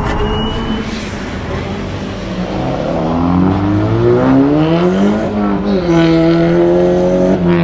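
Tesla electric drive motors of a race car whining over tyre and road noise. The whine rises in pitch for a few seconds, dips, then holds steady before cutting off near the end.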